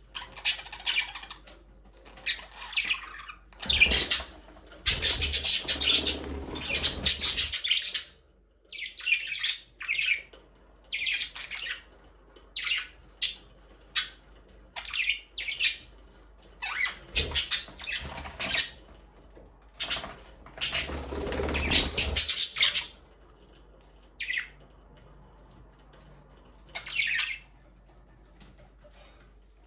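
A flock of budgerigars chirping and squawking in short, repeated calls, with two longer, louder stretches of fluttering wings. The calls thin out toward the end.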